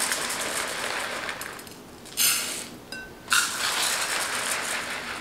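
Dry glutinous rice grains pouring from a plastic bag into a pot, pattering and rattling against its sides, with two louder surges of pouring about two and three and a half seconds in.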